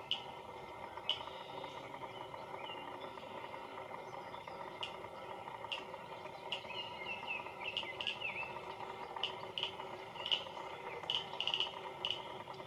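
Outdoor ambience of small high chirps and clicks every second or so, with a short burst of twittering calls about two-thirds of the way through, over a steady faint hum.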